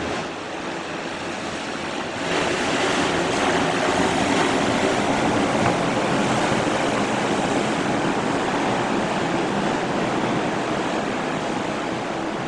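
Steady rush of wind and water, with wind on the microphone, growing louder about two seconds in.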